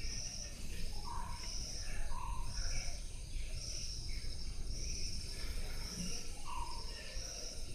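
Background chirping: a high-pitched pulsing call repeats about once a second, with a few short lower falling notes, over a steady low rumble.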